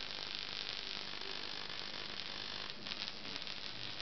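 High-frequency spark tester of about 35 kV arcing from its wire lead onto an electronic energy meter: a steady crackling hiss, a little stronger about three seconds in. This is a high-voltage tamper test of the meter.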